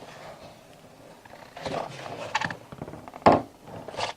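Plastic parts of a Eureka AS2113A upright vacuum knocking and clicking as a part is pushed into the base, with a sharp snap about three seconds in and another click just before the end.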